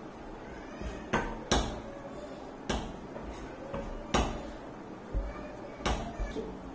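A spoon stirring thick flour-and-egg batter in a glass bowl, knocking against the glass in sharp clicks at uneven intervals, about one a second.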